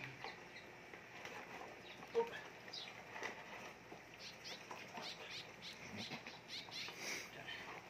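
German Shepherd puppies eating dry food from plastic bowls: faint, irregular crunching and clicking, with one sharper knock about two seconds in.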